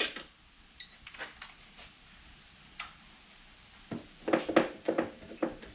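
Scattered light clicks, then a quick run of knocks and rattles about four seconds in: hard parts and tools being handled while working on a dirt bike.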